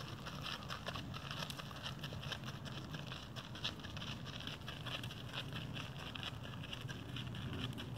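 Mule's hooves crunching on gravel at a walk: irregular small crunches several times a second over a steady low hum.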